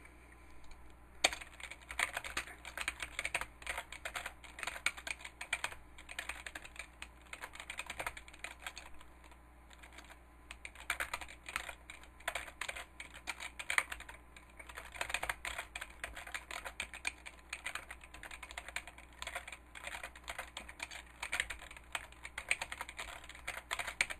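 Typing on a computer keyboard: a long run of rapid keystrokes starting about a second in, broken by a few brief pauses.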